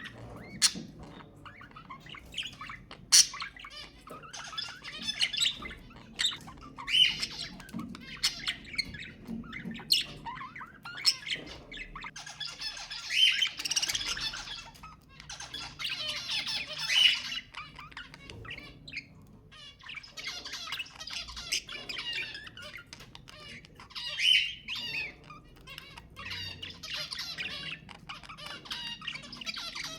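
Budgerigars chattering and warbling, with sharp chirps and squawks; bursts of dense warbling come and go every few seconds.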